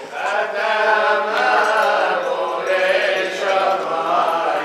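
A congregation singing a liturgical chant together, a synagogue song sung while the Torah scroll is carried in procession.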